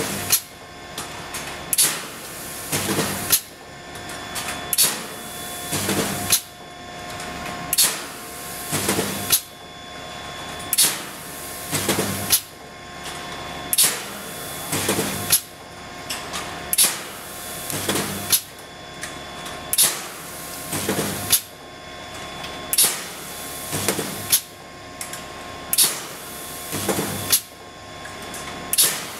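Automatic double-wire fence mesh resistance welding machine working through its cycle about every three seconds: a sharp clack, then about a second later a longer burst of noise as a row of wire crossings is welded, over a steady machine whine.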